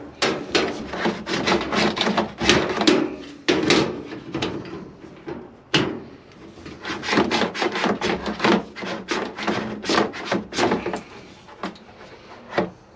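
Irregular knocking, clunking and rubbing from hands handling the hoses and panels at the back of a washing machine while it is disconnected.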